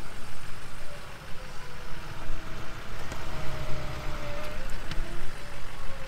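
Truck engine running while the stuck pickup is slowly backed up during the recovery: a low rumble with a faint steady whine over it.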